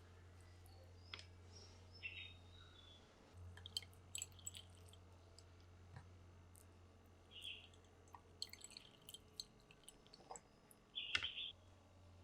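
Faint, scattered clicks, taps and a few short scrapes of kitchen utensils handling ingredients, over a low steady hum that stops about nine seconds in.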